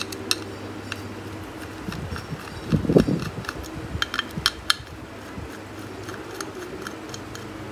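Small metallic clicks and ticks of a screwdriver working the screws out of the parts inside an opened computer hard drive, with a dull knock about three seconds in and a quick run of clicks a second later.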